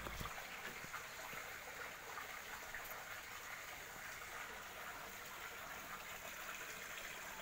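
Faint, steady trickle of running water splashing into a fish pond.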